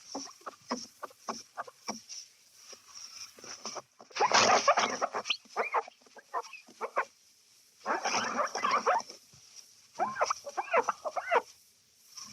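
Window glass being wiped by hand, squeaking. First come short quick strokes, then longer, louder rubbing bursts about four and eight seconds in. Near the end come squeaks that rise and fall in pitch.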